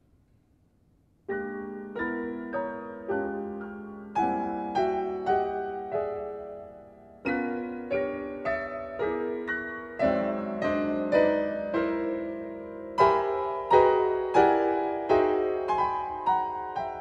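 Solo piano: after about a second of near silence, chords are struck one after another, roughly one or two a second. Each rings and fades over a sustained low note.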